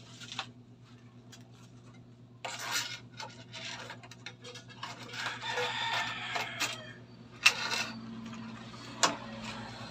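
Gloved hands handling electrical wire and plastic junction boxes: rubbing and scraping as the wire is pushed and pulled through corrugated plastic conduit, with a couple of sharp clicks near the end.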